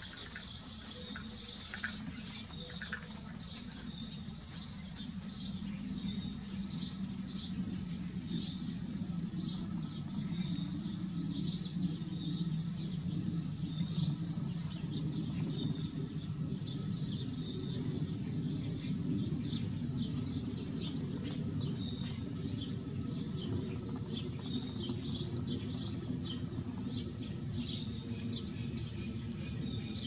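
Small birds chirping and calling, short high notes coming several times a second throughout, over a steady low rumble.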